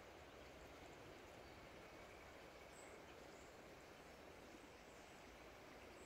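Near silence: faint, steady outdoor background hiss with no distinct sound.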